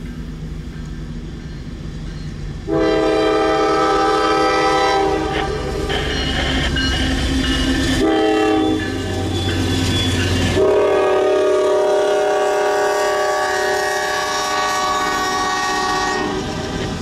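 Norfolk Southern freight train's diesel locomotives passing close, sounding a multi-note air horn: a long blast about three seconds in, a short one, then another long blast that stops shortly before the end. Under it are engine rumble and wheels clacking over the rail joints.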